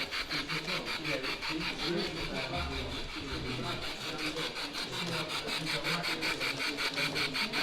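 G-gauge model train running on a garden-scale layout, giving a rapid, even rasping rhythm of about nine beats a second, with faint voices underneath.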